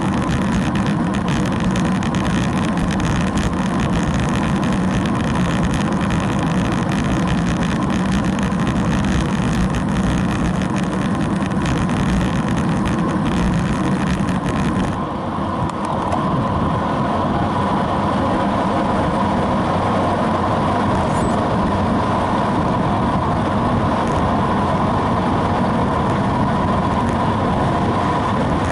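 Wind rushing over a bicycle-mounted onboard camera, with tyre noise on asphalt, as a steady loud rush. About halfway through, the high hiss drops away and the sound turns duller.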